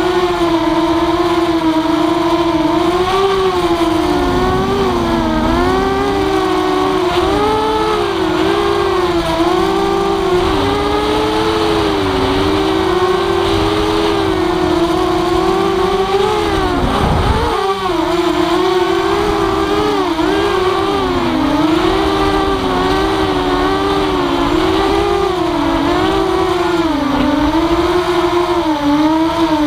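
Walkera F210 racing quadcopter's brushless motors whining, the pitch wavering up and down constantly with throttle changes. A little past halfway the pitch drops sharply and climbs straight back, as the throttle is chopped and reapplied.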